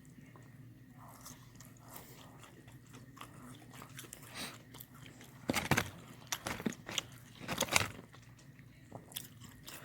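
Close-miked eating: soft mouth clicks and chewing, then several loud crunchy bites from about halfway through, of fried fast food.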